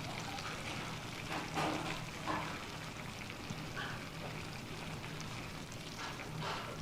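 Food sizzling in a hot pan, with a few brief louder moments.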